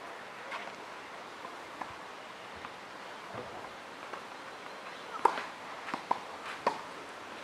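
Tennis ball struck by a racket with a sharp crack about five seconds in, followed within a second and a half by three more knocks of ball on strings and court, over a steady outdoor hiss; fainter ball taps come in the first few seconds.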